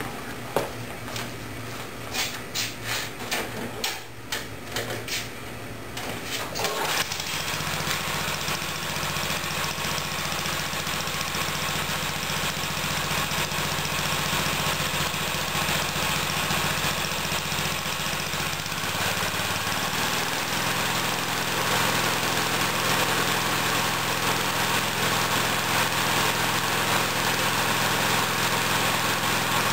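Tecumseh lawn mower engine being pull-started: several seconds of uneven pulses, then it catches about seven seconds in and runs steadily. Around nineteen seconds in its note changes slightly.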